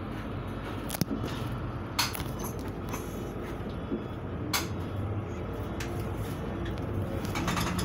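Interior of a moving city bus: steady engine and road drone, with a few sharp rattles or knocks from the cabin, at about one and two seconds in and again a little before five seconds.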